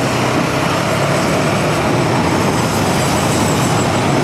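Motorcycle on the move, heard from the rider's camera microphone: steady, loud wind rush with the bike's engine running underneath, and traffic on the road around it.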